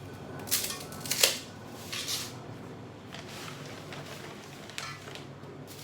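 Bundle of dry spaghetti being snapped in half by hand: a handful of sharp cracks over the first five seconds, the loudest about a second in.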